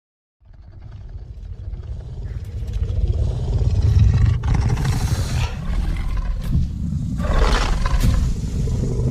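Film creature sound effect for a Carnotaurus dinosaur: a deep roar that starts about half a second in, swells over the first few seconds and carries on, with two harsher surges in the middle and near the end.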